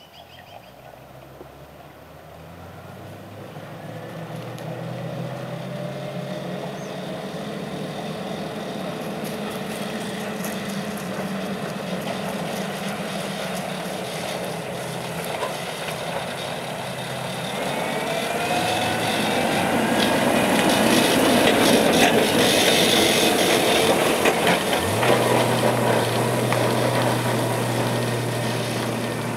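Bv206 tracked vehicle approaching and driving close by: its engine grows steadily louder, rises in pitch about two-thirds of the way through as it speeds up, and its tracks rattle as it passes nearest. Near the end it settles to a steady low engine note.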